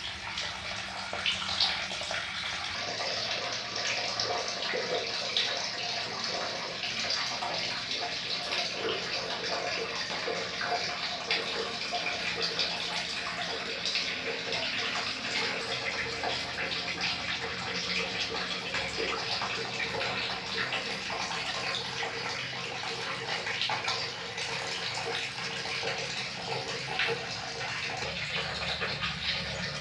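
Running water pouring and splashing steadily, a continuous rush with many small splashes.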